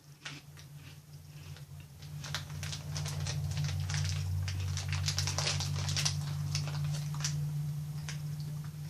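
Chewing on a crisp orange-flavoured tea biscuit: a dense run of small crunches and crackles, louder from about two seconds in, over a steady low hum.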